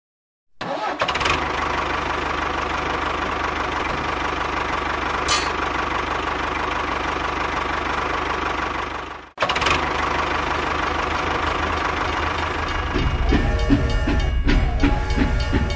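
Tractor engine sound starting up and running steadily, cutting out for a moment about nine seconds in and then carrying on. Near the end a train's rhythmic chugging comes in.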